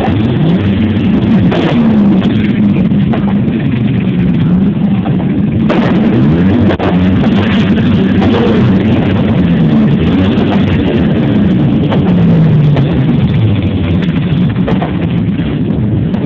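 Loud, distorted music with low melody lines that waver up and down.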